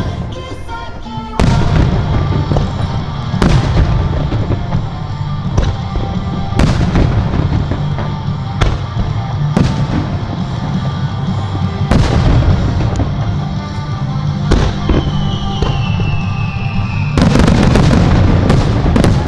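Aerial firework shells bursting over a lake, one sharp bang every one to two seconds, each trailing off in an echo. A falling whistle sounds around the middle, and near the end a rapid cluster of bursts crackles together.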